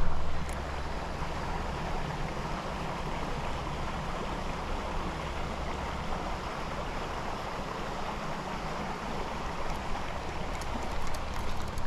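Steady rush of a creek's flowing water, with a few light clicks near the end.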